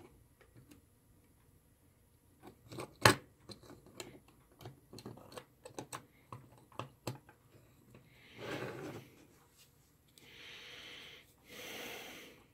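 Clear acrylic enclosure panels being handled and pressed together around a clock kit's circuit board: a run of small plastic clicks and taps, the loudest about three seconds in. Near the end come three short, soft hissing sounds.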